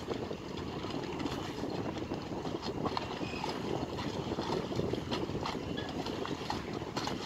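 Steady low rumble of dockside work noise with scattered light clicks and knocks.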